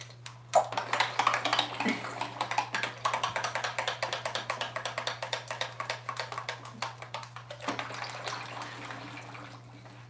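African grey parrot splashing in a shallow dish of water, a rapid, uneven patter of small splashes that tails off near the end.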